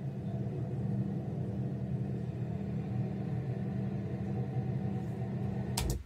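Steady low rumble and hum, with a sharp click shortly before the end.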